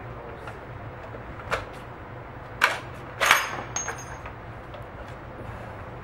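Sharp cracks of gunfire at an indoor range, the loudest about three seconds in and echoing briefly, followed by a light metallic clinking and ringing, typical of a spent brass casing bouncing on a concrete floor.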